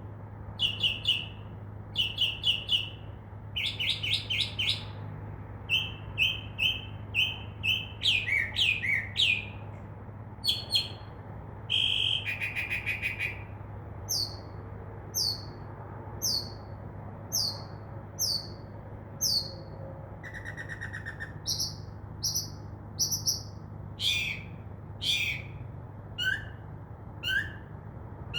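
Northern mockingbird singing at night, running through a string of different phrases and repeating each several times before switching to the next: clusters of quick chirps, a buzzy trill, then a run of short downslurred whistles about one a second. Night singing like this is typical of an unmated male mockingbird advertising for a mate.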